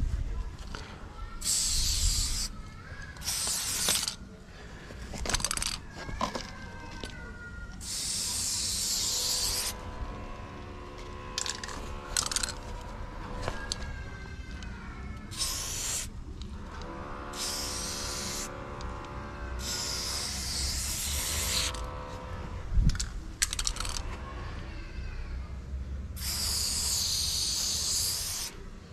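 Trigger spray bottle loaded with watered-down paint, squeezed again and again: about ten hissing sprays, some short, some held for a second or two, the longest near the end.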